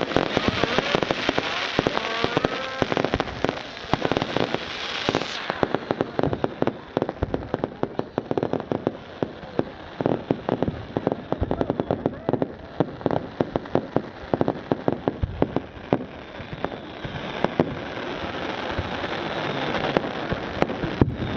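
Firework display: a dense run of sharp cracks and bangs in quick succession, with a hissing crackle over the first five seconds that swells again near the end.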